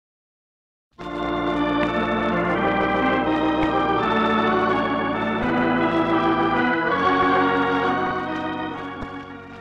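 Instrumental music bridge of sustained held chords, starting after about a second of silence and fading away near the end.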